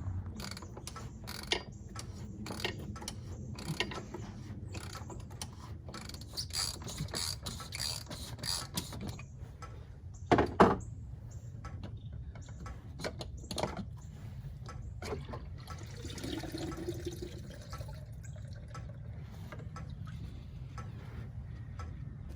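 Ratchet wrench clicking and tools knocking on metal as the fuel filters of a Detroit DD15 diesel are unscrewed, in irregular bursts over a steady low hum, with one louder clunk about ten seconds in.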